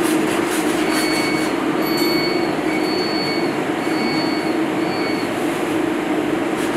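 Chopped food frying in a stainless steel pan on an induction hob and being stirred, a loud, steady sizzle over a steady hum, with a faint high-pitched tone that comes and goes about once a second.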